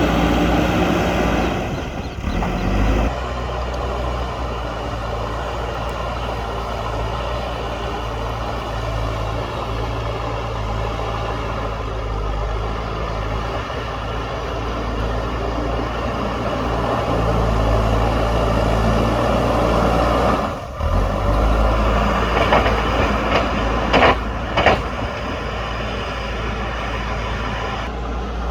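JCB backhoe loader's diesel engine running steadily under load while it pushes soil. The engine changes pitch in the first few seconds, dips briefly about two-thirds through, and a few short sharp clanks or squeals come near the end.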